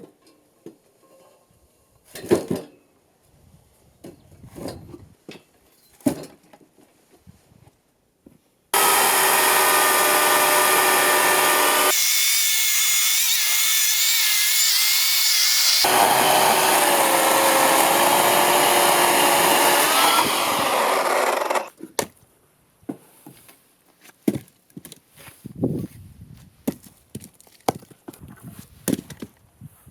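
Power saw cutting oak firewood: a loud, steady sawing that starts suddenly about nine seconds in and stops suddenly about thirteen seconds later. Scattered knocks and clunks come before and after it.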